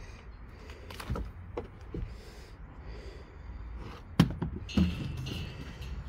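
Loose pieces of a catalpa slab being handled: a few light wooden knocks, then two loud thuds about four and five seconds in. The slab is coming apart from rot.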